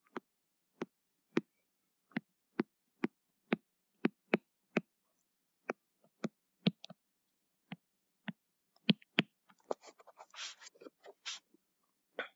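Stylus tapping and scratching on a tablet screen during handwriting: sharp separate clicks about two a second, with a short stretch of scratchy rustling near the end.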